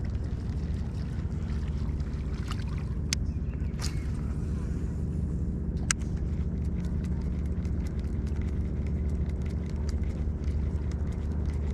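A steady low motor hum running throughout, with a few sharp clicks a few seconds in and light scattered ticks over the second half.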